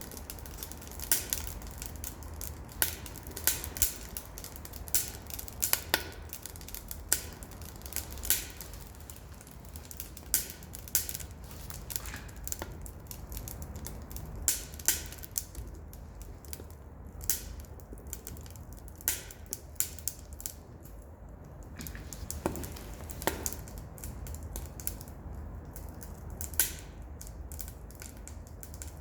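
Wood fire in a wood stove crackling, with sharp irregular pops from burning pallet and box wood over a low steady rumble. The pops come about once a second and thin out in the second half.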